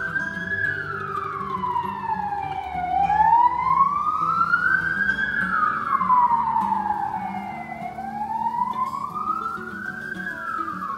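Emergency vehicle siren wailing in slow rising and falling sweeps, about one every five seconds. It is loudest around the middle and fades somewhat toward the end.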